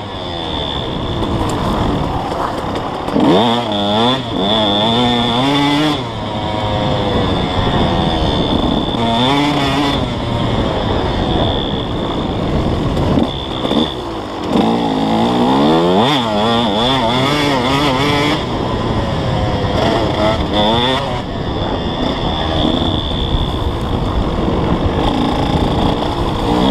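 KTM 150 SX two-stroke single-cylinder dirt bike engine under way, revving up and falling back over and over as the throttle is worked.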